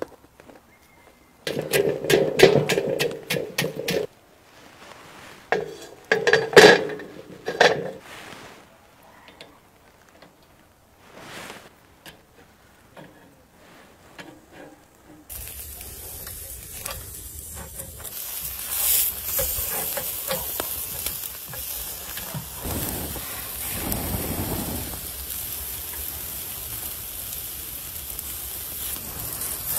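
Skewers of lamb shashlik and tomatoes sizzling over charcoal: a steady sizzling hiss with small crackles from about halfway on. Before that come a few short bursts of clatter and knocks.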